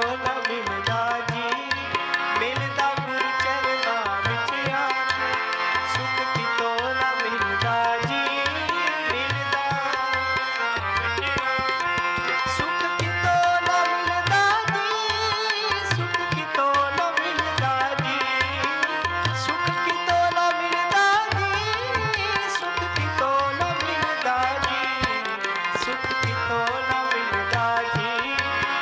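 Two harmoniums holding sustained reed chords and melody, with a tabla pair playing a steady running rhythm underneath: an instrumental passage of a Sikh kirtan dharna.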